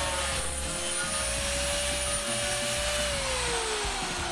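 Electric angle grinder running and cutting an old curtain rod to length, a steady whine over a hissing cut. About three seconds in it is switched off and the whine falls in pitch as the disc spins down.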